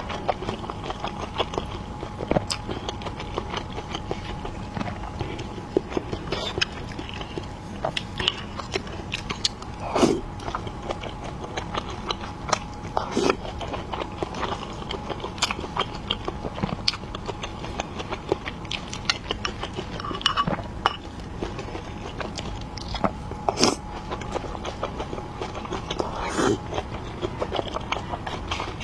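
A person chewing and biting dumplings close to the microphone, with sharp mouth clicks at irregular intervals. A faint steady hum runs underneath.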